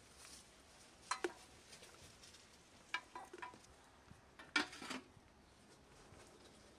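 Metal clinks and clanks as a rusty chimney pipe is fitted onto the top of a samovar. They come in three short clusters, and the loudest is about two-thirds of the way in.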